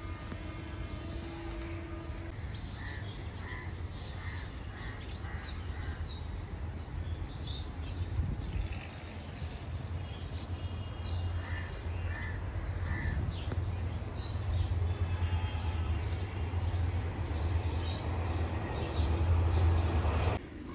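A crow cawing in two runs: about six caws in a row a few seconds in, then three more near the middle. Underneath is a low rumble that grows louder toward the end.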